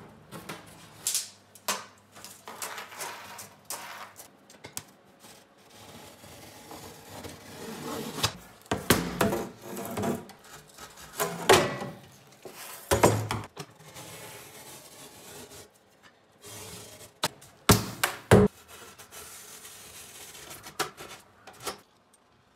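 Rigid foil-faced foam insulation panels being handled and fitted by hand: irregular rubbing and scraping of board against board and wall, with several sharper knocks as the panels are set down.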